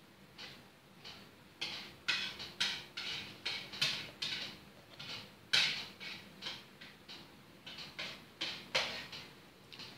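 A toddler's mouth smacking and clicking while eating chocolate from a cup: a quick run of short, wet clicks, about three a second, louder through the middle.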